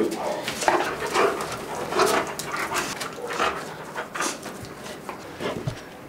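Dogs barking and whining in short calls, several times over.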